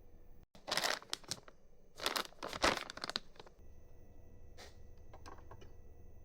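Two short bursts of crinkling and rustling, then a few light clicks.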